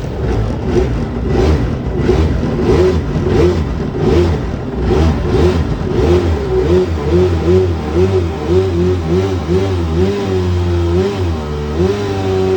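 Yamaha 650 two-stroke twin engine of a 1991 Eckler Jet 'n Cat, freshly rebuilt and on its break-in, running with the revs rising and falling quickly over and over. Near the end the swings slow down and it settles into a steady pitch.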